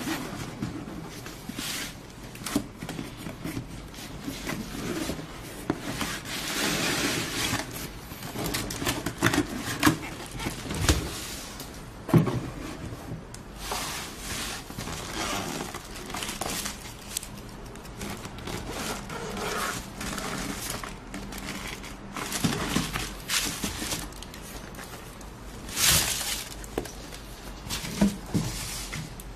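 Cardboard shoebox and its packing being handled: the lid lifted off, irregular rustling and crinkling, with scrapes and sharp knocks as the sneakers are taken out.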